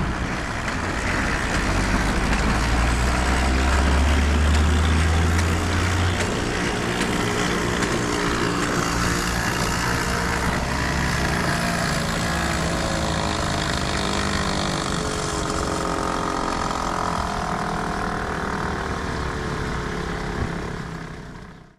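Steady mechanical whirring of a bicycle-driven cotton candy machine's spinning head, its tones wavering slightly, over street noise. A low rumble fills the first few seconds, and the sound fades out at the end.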